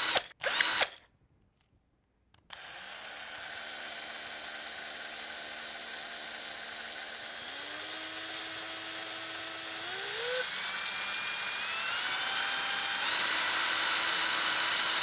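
Electric drill: a few short trigger bursts, a pause, then the motor runs steadily. Its whine steps up in pitch three times as the speed is raised.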